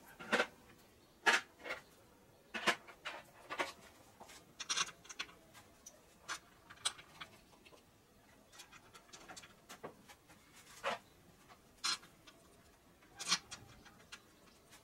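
Irregular light metallic clicks and taps of valve-cover bolts being handled and set into their holes on the engine's valve cover.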